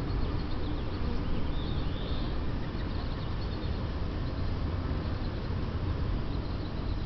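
Honeybees buzzing around a hive under a steady low rumble, with a few short bird chirps about one to two seconds in.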